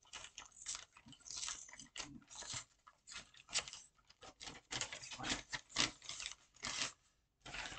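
Packaging crinkled and torn open by hand to unwrap a fat quarter of fabric: a run of irregular crackling rustles.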